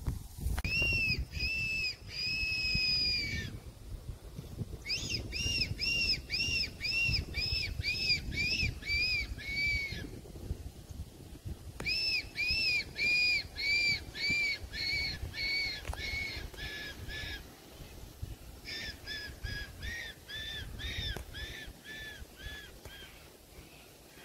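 Fox whistle blown in four runs of short, rising-and-falling squeals, about two a second, each run sinking slightly in pitch: a predator call imitating a rabbit in distress to draw in a fox. A low rumble sits underneath.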